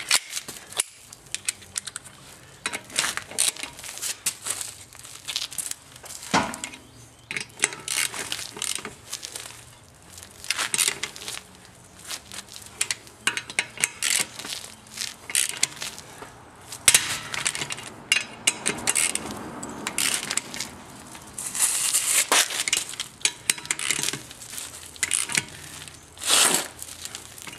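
Metal hand tools clicking and clattering irregularly as bolts are tightened up during reassembly of the engine bay.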